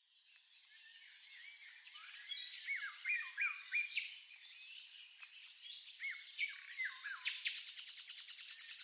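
Birds singing and chirping, fading in at the start: short whistled notes, several sliding down in pitch, then a fast, even trill from about seven and a half seconds in.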